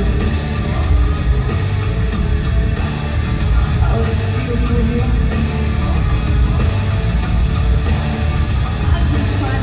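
A live rock band playing loud, with electric guitars and drums.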